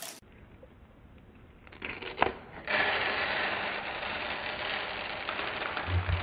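Scissors cutting through the rubbery skin of a squishy toy packed with tiny plastic beads: a dense crunching rustle that starts about two and a half seconds in, after a near-silent start and a single click.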